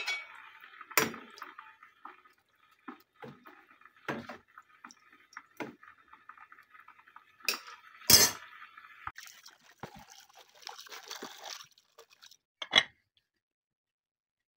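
Kitchen handling sounds: water sloshing and dripping among a steel pot and a plastic bowl, with scattered clinks and knocks, the sharpest just after the middle and once more near the end.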